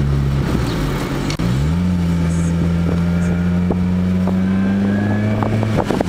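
Freshly rebuilt Ford Focus engine running while the car is driven. Its note drops away about half a second in, climbs again about a second and a half in, and then holds steady.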